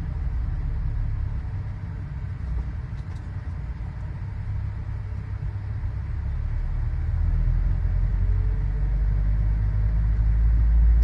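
Low, steady road-vehicle rumble that grows louder over the last few seconds.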